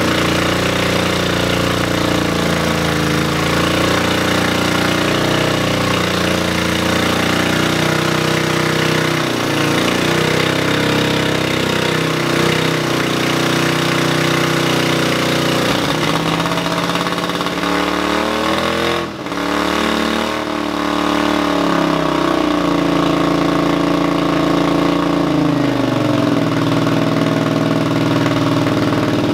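Honda CX V-twin motorcycle engine running through a freshly heat-wrapped exhaust on its first fire-up. It idles with the throttle worked now and then, the revs rising and falling a little, with a brief dip in revs about two-thirds of the way through.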